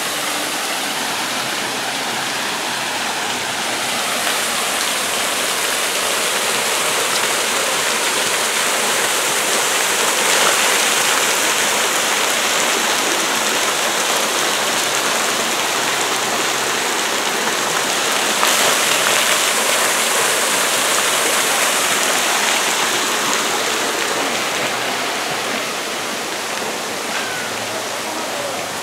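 Water-playground features pouring and splashing: a waterfall running over artificial rockwork and water streaming down from a row of overhead buckets, a steady rushing that grows louder through the middle and eases off near the end.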